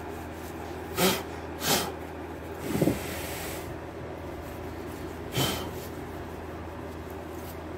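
Cloth rag wiping sanding dust off a painted alloy wheel and its plastic masking sheet: four short rustling swishes, about one, two, three and five seconds in, over a steady low hum.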